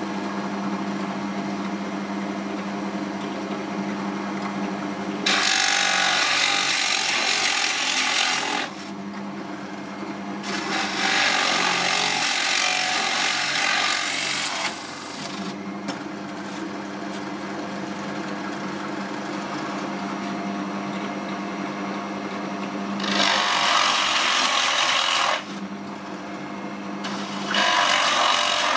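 Drill press running with a steady hum while a large Forstner bit bores holes through plywood. Four loud, harsh cutting passes of a few seconds each come about five, eleven, twenty-three and twenty-eight seconds in, with only the motor's hum between them.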